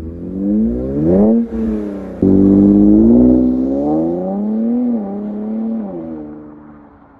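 Infiniti Q60's VR30 twin-turbo V6 through an aftermarket catback exhaust and downpipes, accelerating hard: the engine note climbs and drops several times, with sudden drops like gear changes, then fades away near the end.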